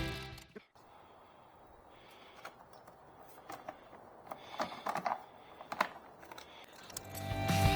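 Background music fades out in the first second, leaving a faint background with a scattered series of light clicks and knocks, the sharpest about six seconds in; music fades back in near the end.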